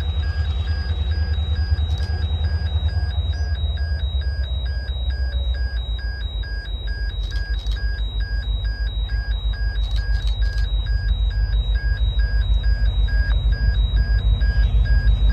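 Electronic level crossing bell dinging steadily at a few strokes a second, over the low rumble of an approaching diesel freight locomotive that grows louder near the end.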